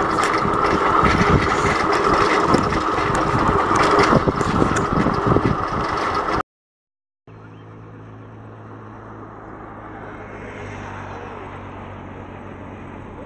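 Wind buffeting a camera microphone on a moving bicycle, a loud, rough, gusty rush that cuts off abruptly about six seconds in. After a short silence, a much quieter steady low hum with light wind follows.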